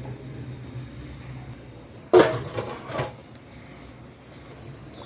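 Three sharp knocks of kitchenware, the loudest about two seconds in and two smaller ones within the next second, over a faint low hum.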